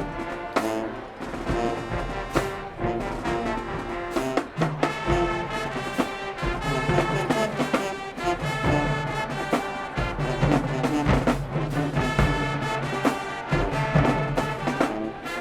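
High school marching band playing, brass over drumline: trumpets and trombones on stacked notes, with steady drum hits. About four seconds in the low brass comes in with a strong held bass line.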